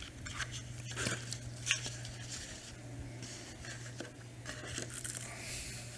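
Quiet pause in a room: faint rustling and scattered small clicks over a steady low hum, with one sharper click a little under two seconds in.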